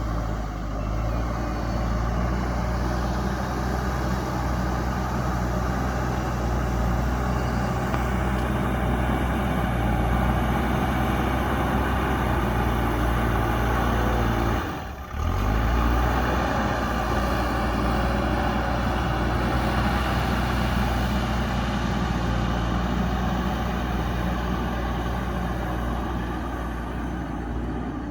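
Diesel engine of a JCB backhoe loader running steadily under load while it pushes and levels soil. The sound briefly drops out about halfway through.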